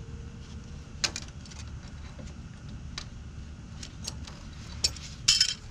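Scattered metallic clicks and clinks as a steel parking-brake cable and its fittings are handled and bent by hand, with a quick cluster of louder clinks near the end, over a low background rumble.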